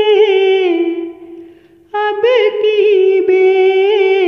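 A solo voice singing a slow Hindi devotional bhajan in long, ornamented held notes. The phrase fades out about a second in, and a new held, wavering phrase begins about two seconds in.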